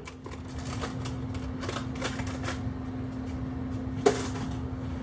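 Light, irregular clicking of Steelman Pro Cobra fine-tooth ratchets being handled and worked, with one sharper click about four seconds in.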